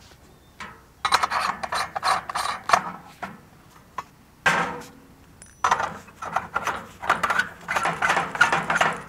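Steel split-spoon sampler parts being handled and screwed together: rapid metal-on-metal scraping and clicking in two long runs, with a sharp knock about halfway through.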